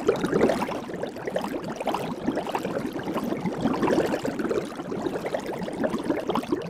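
Soap bubbles bubbling and popping: a dense, continuous stream of many tiny overlapping pops and chirps.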